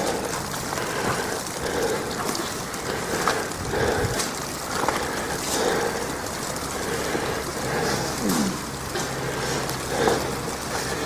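Wet snow and sleet falling on an umbrella held just over the microphone, as a steady hiss with many scattered small ticks of drops striking it.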